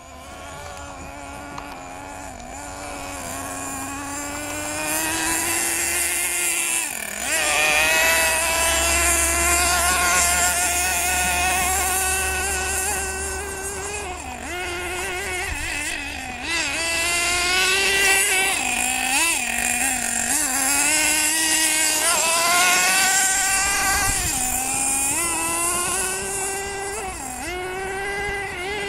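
Small engine of a radio-controlled off-road car buzzing as it drives, its pitch rising and falling with each burst of throttle and braking. It grows louder over the first several seconds as the car comes closer.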